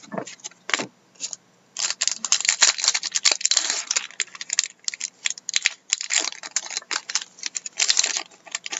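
Trading card pack being handled and opened: the wrapper crinkles and tears in a dense run of crackles and clicks, with cards flicking against each other.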